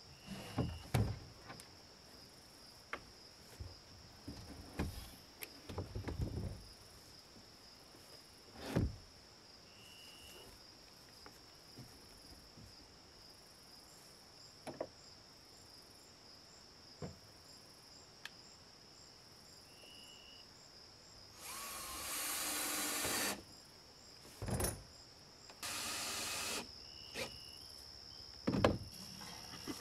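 Cordless drill driving screws into wood: two runs in the last third, the first about two seconds long, the second about one, with scattered knocks and handling thuds earlier. Crickets chirp steadily underneath.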